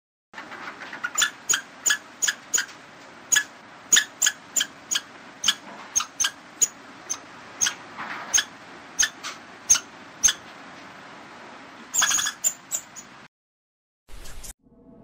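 A squirrel calling: short, sharp, high-pitched squeaks repeated about two a second at an uneven pace, over a faint background hiss. The calls stop about 13 seconds in.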